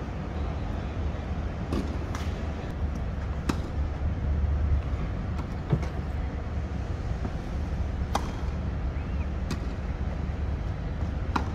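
Tennis balls struck by rackets in a rally, sharp hits about every one to two seconds, over a steady low rumble of wind on the microphone.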